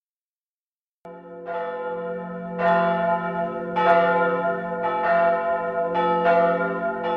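Church bells ringing, starting about a second in, with a fresh stroke roughly once a second over a lingering low hum.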